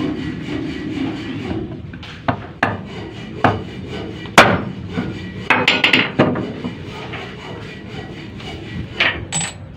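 Sharp knocks of a wooden block struck down onto a radiator water pump's hub: a handful of separate blows, the loudest about four seconds in and a quick cluster around six seconds, then a couple of lighter clicks near the end.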